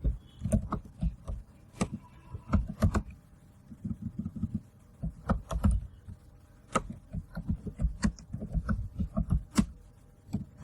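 Typing on a computer keyboard: irregular runs of keystrokes, each a sharp click with a dull thump, coming in quick clusters with short pauses between.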